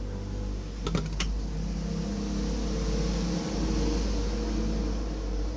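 A few sharp plastic clicks about a second in as a mini-USB plug is pushed into its socket on a satellite receiver's circuit board, over a steady low hum with several held tones.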